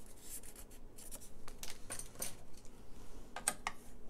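Faint scratching and rubbing of cardstock and a scoring tool on a plastic scoring board while a score line is made, a few short, irregular scrapes spread through.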